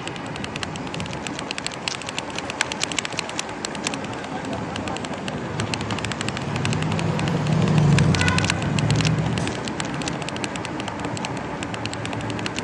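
A vehicle passing, its low engine hum swelling to a peak about eight seconds in and then fading, over a steady crackling noise.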